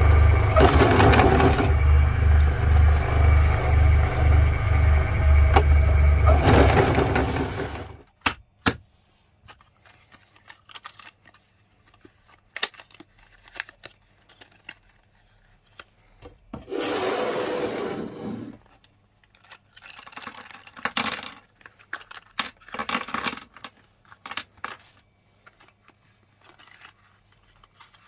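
Electric meat grinder running with a low motor hum and crackling as it crushes sticks of chalk, cutting off about eight seconds in. Scattered clicks and knocks follow, with a short scraping burst partway through and more crackling near the end.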